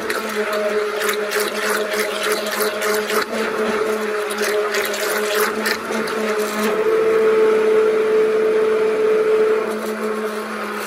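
Hamilton Beach immersion (stick) blender running in a plastic bucket of oil mixed with activated charcoal: a steady motor hum with splashing and slapping of the liquid for the first six or seven seconds, then a smoother, steadier whir.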